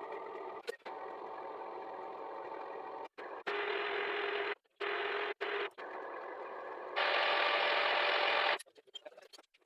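Machine running steadily with a hum, heard in several short stretches joined by abrupt cuts, each a little different in pitch and loudness. Near the end it stops suddenly, leaving only faint ticks.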